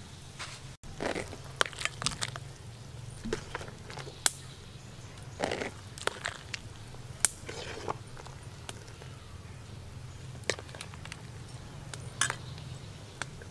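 Handling noise of food preparation: irregular clicks, rustles and light knocks as sliced vegetables are dropped into a disposable bowl around a cooked lobster and a metal spoon is worked into it, over a low steady hum.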